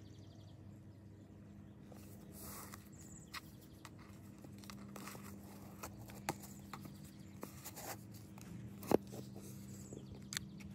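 Faint handling sounds of a ribbon-tied cardboard gift box: the ribbon pulled loose and the lid opened, with scattered light taps and rustles, the sharpest about nine seconds in. A steady low hum lies beneath.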